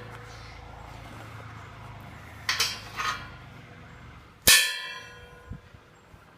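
A sharp metallic clang about four and a half seconds in, ringing on for about a second, after two shorter knocks. A low steady hum underneath stops just before the clang.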